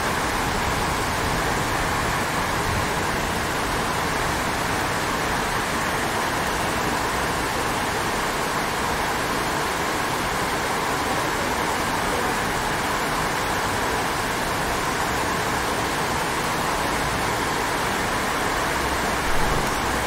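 Steady heavy rain hissing, with a low rumble of distant thunder near the end.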